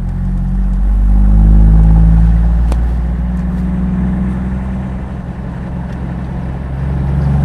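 Toyota 4x4 driving on a paved road: a steady low engine drone with road noise, swelling about a second in and then easing off. There is a single light click near the middle.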